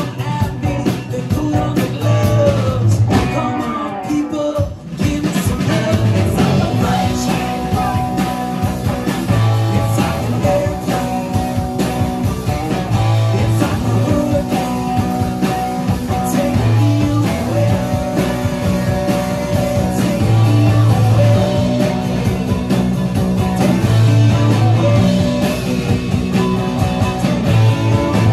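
A live band playing an upbeat rock-and-roll song on acoustic and electric guitars, drums, upright bass and fiddle, with a brief drop in the sound about four to five seconds in.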